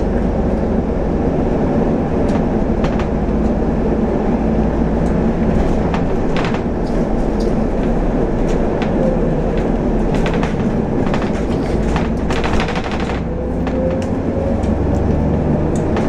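Double-decker bus heard from the upper deck while it drives: a steady engine and road rumble, a faint whine that rises and falls, and brief rattles from the bodywork now and then.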